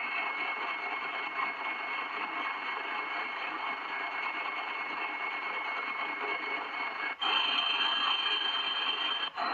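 Medium-wave AM radio reception: a steady rush of noise and static with a thin, steady whistle over it. About seven seconds in the sound cuts out for an instant and the whistle comes back at a higher pitch; another short cut comes near the end.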